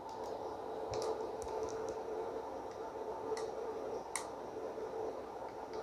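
A few small, sharp clicks and taps spread over several seconds as the screws are undone from a laptop hard drive's mounting bracket and handled, over a steady faint hum.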